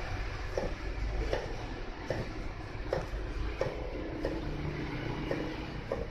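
Kitchen knife slicing a bitter melon thinly on a cutting board: short knocks about one every three-quarters of a second, over a steady low rumble.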